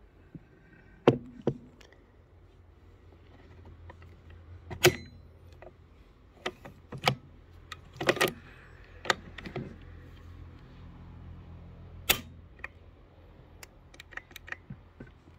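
Irregular sharp metallic clicks and clacks as a Persian Brno Mauser bolt-action rifle is handled and its bolt and action worked by hand, the loudest clacks about a second in, near the middle and about three quarters through.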